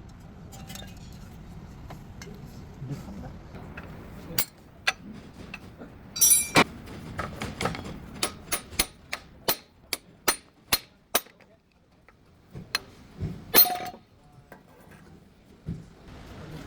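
Metal tools clinking and striking on metal, with a run of quick, fairly even knocks in the middle and a couple of louder ringing hits.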